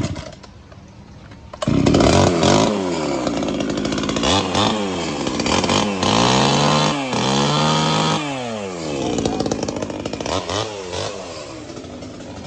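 A 30cc two-stroke chainsaw pull-started for a demonstration. It catches about two seconds in and is revved up and down several times with the throttle, dropping back toward idle between blips.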